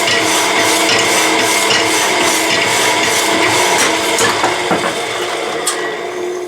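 Power hacksaw running, its blade reciprocating at about three strokes a second over a steady motor hum. The blade is old and dull and cutting slowly. The stroke rhythm fades after about four seconds and the machine winds down to a stop at the end.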